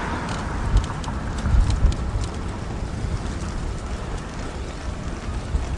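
Wind rumbling on the microphone and road noise while riding a recumbent trike, with a few low thumps in the first two seconds.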